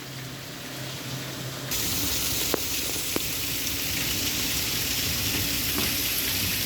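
Heavy rain pouring down as a steady hiss that abruptly gets much louder a little under two seconds in, with a couple of sharp clicks soon after.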